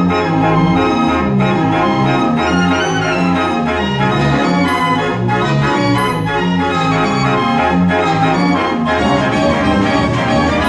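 Mechanical fair organ's pipes playing a 1950s rock'n'roll tune from punched cardboard book music, with a stepping bass line that drops out about nine seconds in.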